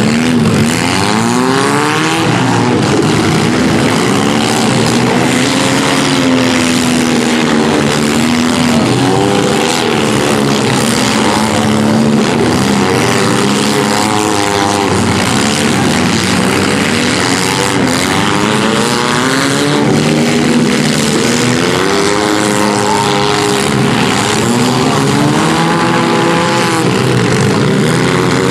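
Several small-car engines revving up and down at once, their pitches rising and falling over one another in a continuous din, as compact demolition derby cars drive and manoeuvre in the arena.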